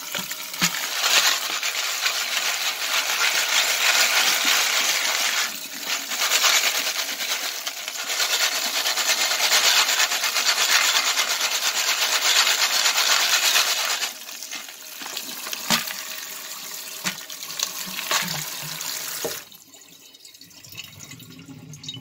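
Tap water pouring onto a pile of moly-coated jacketed bullets in a plastic colander in a sink, rinsing off the moly water, with the bullets clinking as they shift. The flow is heavy at first, eases about two-thirds of the way through and is shut off near the end.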